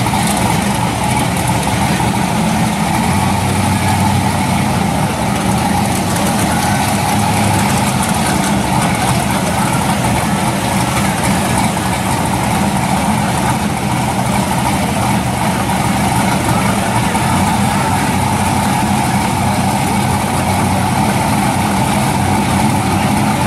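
Drag-car engines idling steadily, a 1969 Chevrolet Chevelle's among them, with no revving.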